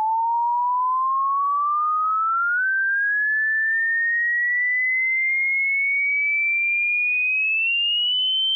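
Pure sine test tone sweeping slowly and steadily upward in pitch, from a mid tone to a high whistle: a hearing-test frequency sweep.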